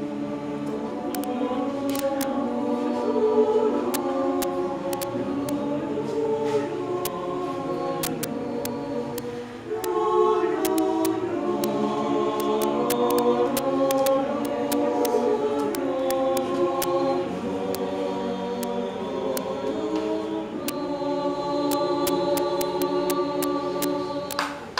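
Mixed choir of men's and women's voices singing a Spanish-language song in several-part harmony. There is a short breath break about nine and a half seconds in, and the last chord ends near the end.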